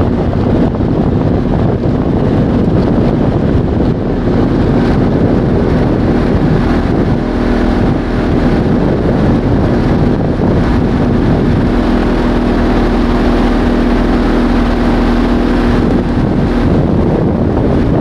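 Speedboat motor running steadily under way, with wind rushing over the microphone. The engine's hum stands out more clearly from about eight seconds in, then sinks back into the wind noise shortly before the end.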